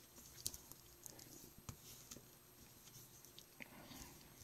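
Faint, scattered clicks and taps of a plastic action figure being handled and set on its feet, about a dozen light ticks spread over a few seconds.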